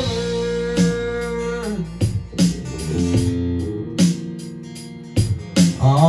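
Live band playing an instrumental stretch of a country song: strummed acoustic guitar chords over electric bass, with drums keeping a steady beat.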